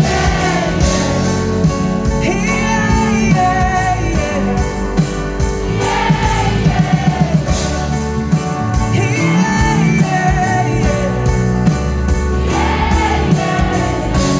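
Live acoustic pop song: sung melody over strummed acoustic accompaniment, with no clear lyrics.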